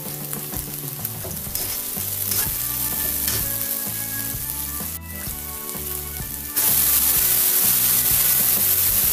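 Onion, garlic and green chillies sizzling in hot oil in a wok, stirred with a metal spatula. About two-thirds of the way through, the sizzle turns suddenly much louder and hissier as the cut vegetables are dropped into the oil.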